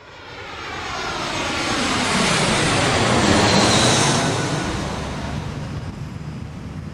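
Airplane passing overhead: a rushing engine noise that swells to its loudest about three and a half seconds in and then slowly fades.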